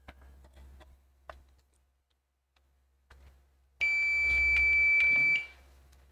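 Multimeter continuity beeper sounding a steady high beep for about a second and a half as the probes touch the circuit board, then starting again near the end: the line still shows a short to ground. A few faint probe clicks come before it.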